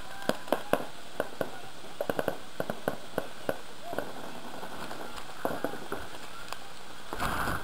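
Paintball markers firing on the field: irregular sharp pops, single shots and quick clusters of two or three, with players' shouts. A short rushing noise comes near the end.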